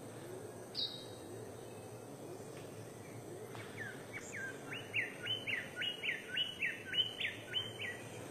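A bird calling: one sharp high note near the start, then from about four seconds in a rapid run of repeated whistled notes, each sweeping up and dropping back, about three a second, over steady background hiss.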